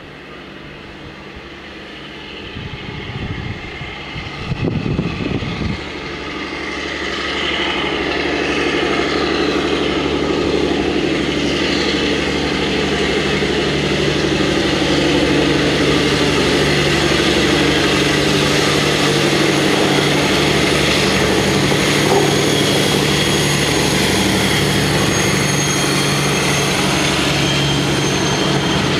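British Rail Class 52 'Western' diesel-hydraulic locomotive D1062, its twin Maybach V12 diesel engines working under power. The engine drone swells as the locomotive approaches, from about six seconds in, then holds loud and steady.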